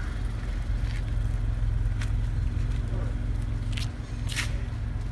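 Mazda 6 with an AutoExe aftermarket exhaust and Porsche Panamera tailpipe tips idling: a steady, deep exhaust rumble with no revving. A few short sharp clicks sound over it.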